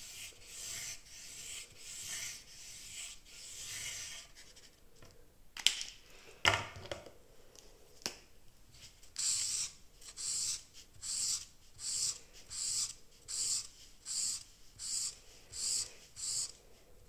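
Felt-tip marker colouring on paper. It starts with quick, irregular scratchy strokes; about six seconds in there is a click and a knock, then steady back-and-forth shading strokes at a little over one a second.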